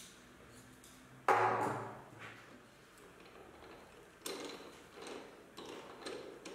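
Metal-on-metal handling at a lathe chuck: one loud ringing knock about a second in, then a few light clinks and clicks as hands work the chuck jaws.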